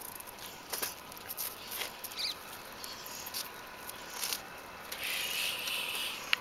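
Faint scattered ticks and rustles from a tan street dog moving about close by on asphalt, with a brief high chirp about two seconds in and a soft hiss near the end.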